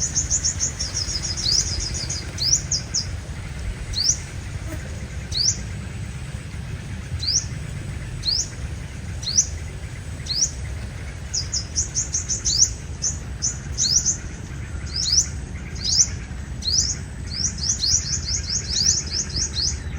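Sunbird calling: high, thin, down-sweeping chirps about one a second, broken by runs of rapid trilled notes at the start, about halfway through and near the end.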